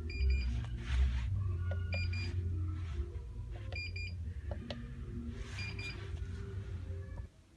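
8-in-1 heat press control box beeping: short double beeps repeating about every two seconds, over low background music. It is the fault beeping that will not clear, which the owner traces at least partly to the power cord having been pulled out instead of unscrewed.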